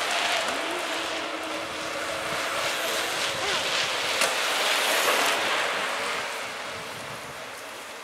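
A bunch of mountain bikes riding past on a wet tarmac road, their tyres hissing. The hiss swells as the group passes close, about four to five seconds in, then fades as they ride away.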